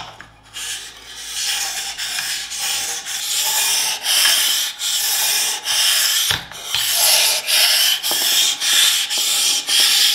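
A kitchen knife blade is stroked back and forth on the fine 6000-grit side of a soaked combination whetstone, making a rhythmic scraping at about two strokes a second. It starts softly and grows louder over the first few seconds.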